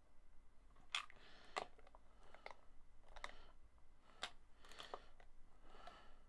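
Faint sharp metal clicks, a second or so apart, with short scrapes between them: a socket wrench fitting onto and tightening the nuts of an electric guitar's control pots so they don't spin.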